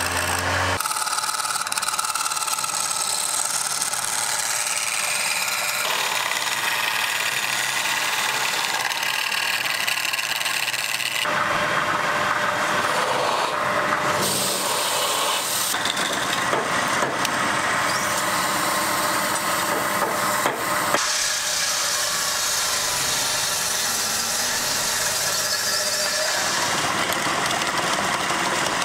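Wood lathe spinning a wooden blank while a turning chisel held on the tool rest cuts into it: a continuous scraping hiss with a high ringing squeal. The sound shifts abruptly every few seconds.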